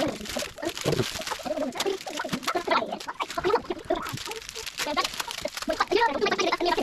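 Fast-forwarded voices sped up into high, chirpy babble, with quick rustling and clicks of card packs being torn open and handled.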